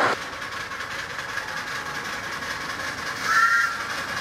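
Miniature steam locomotive running in the distance, with a short two-tone whistle blast about three seconds in.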